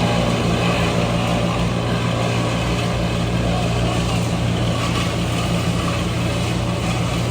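Heavy machinery engine running steadily, a constant low hum.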